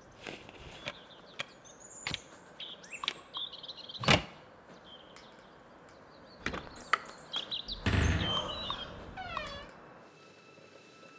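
A plastic card worked into a door jamb to slip the latch: small clicks and scrapes, a sharp click about four seconds in, then the lever handle pressed down and a fuller rustling thump around eight seconds in as the door gives. Birds chirp faintly in the background.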